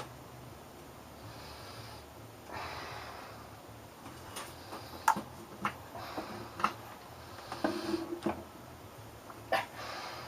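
Two soft breaths, then a series of light clicks and knocks from equipment being handled, over a faint low hum.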